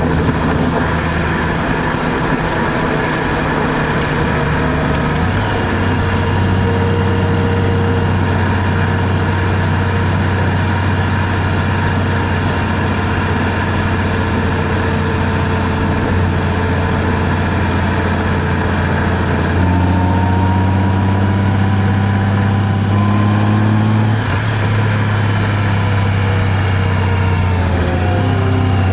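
Vehicle engine running while driving, over a steady road-noise hiss. The engine note shifts pitch a few times, rising for a few seconds about twenty seconds in, then dropping suddenly.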